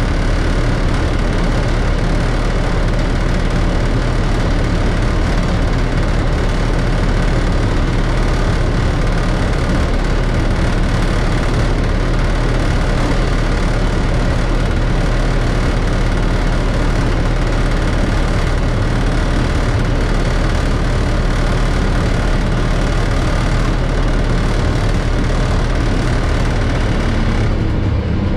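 Class 33 diesel locomotive's Sulzer eight-cylinder engine running steadily, heard from inside the cab. The higher hiss thins out just before the end.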